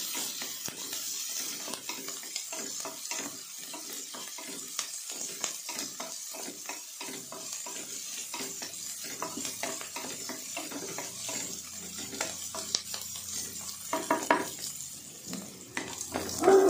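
Chopped onions sizzling in hot oil in an aluminium pressure cooker pan, with a wooden spatula scraping and stirring them against the metal in repeated strokes.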